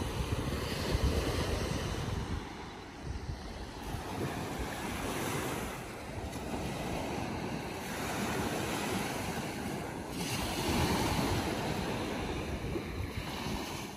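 Small Baltic Sea waves breaking and washing up the sandy shore, the surf swelling and easing every few seconds, with wind buffeting the microphone as a low rumble, heaviest in the first few seconds.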